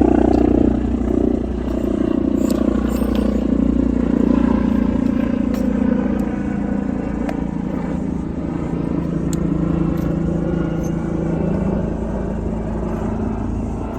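A motor vehicle's engine running close by, steady, its pitch slowly falling over about twelve seconds, with a few faint clicks.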